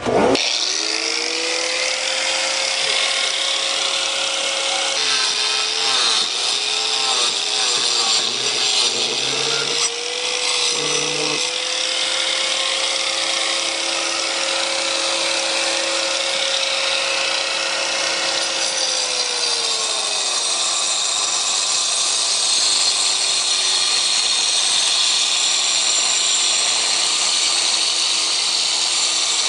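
Handheld power tool cutting a grout line into the cement mud of a faux rock panel. Its motor whine starts at once, dips and wavers under load for several seconds, holds steady, then fades about twenty seconds in, leaving a grinding hiss.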